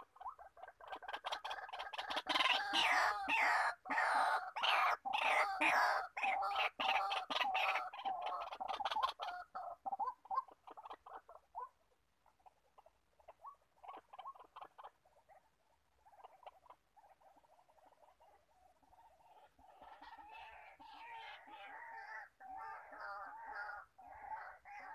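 White-breasted waterhen calling: a loud, fast series of repeated harsh notes that dies away about ten seconds in, then a steadier run of quick notes starting again about twenty seconds in.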